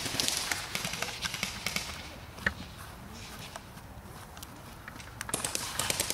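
Hurried footsteps crunching and rustling through dry brush, with a flurry of sharp clicks at the start and another near the end.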